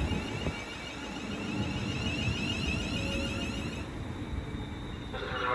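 Class 350 Desiro electric multiple units standing at the platform, giving off a high electrical whine with a repeating sweep over a low rumble; the whine cuts off about four seconds in.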